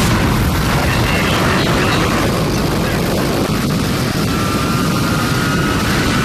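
Jet engine noise from a jet-powered land-speed-record car at speed: a loud, steady rush that starts suddenly, with a faint high whine rising slightly from about four seconds in.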